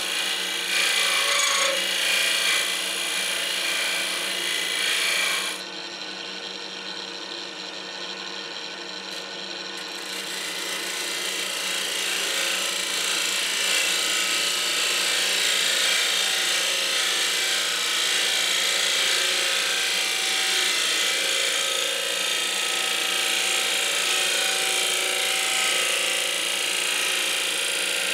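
Wood lathe running with a steady hum while a spindle gouge cuts the outside of a spinning oak blank, giving a continuous rasping hiss of shavings. The cutting sound drops away about five and a half seconds in and builds back up gradually from about ten seconds.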